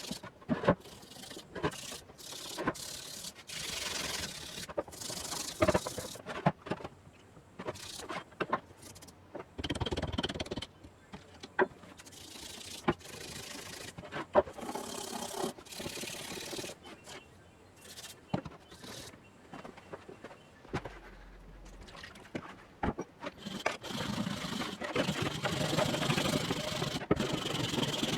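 Hand work on a rusty iron pick/hoe head: irregular knocks, clicks and short scraping strokes of metal and tools being handled. Near the end it turns into denser, more continuous scraping.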